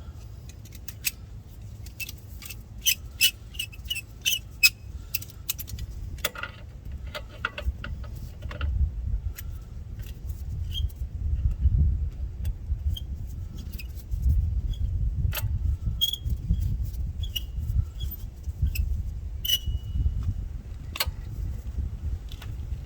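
Seized brake caliper slide pin being twisted and worked out with a wrench: scattered metal clicks and clinks with a few short high squeaks, over a steady low rumble.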